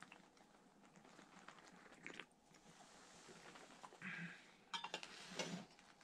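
Faint sounds of puer tea being sipped from a cup, with a few light clinks of crockery about five seconds in.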